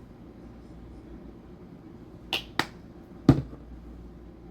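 Three sharp plastic clicks from a sunscreen bottle being handled and dispensed, the third the loudest.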